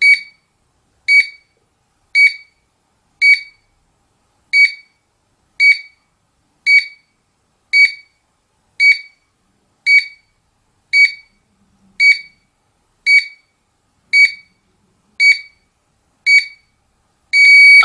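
Wireless GSM alarm control panel beeping through its exit-delay countdown while it arms: short high beeps about once a second, ending in one longer beep near the end as the system goes on guard.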